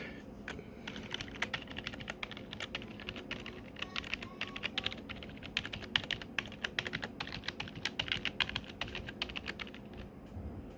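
Typing on a Razer Cynosa V2 membrane keyboard: a fast, uneven patter of soft key clicks that thins out near the end.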